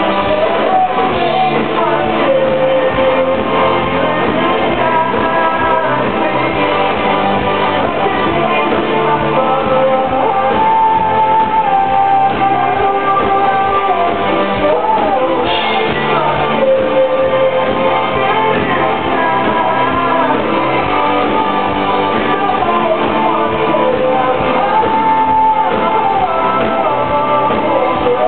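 A live rock band playing a song with singing over electric guitars and drums, at full volume throughout, heard from within the crowd in a large hall.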